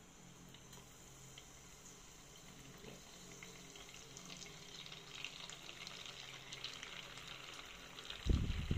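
Shrimp wontons deep-frying in a small pot of oil: a crackling, popping sizzle that grows louder and busier after a few seconds. A loud low rumbling comes in near the end.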